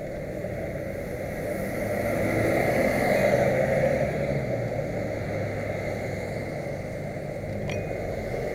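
Road traffic: a car's engine and tyres passing close by, swelling to its loudest about three seconds in and then easing off.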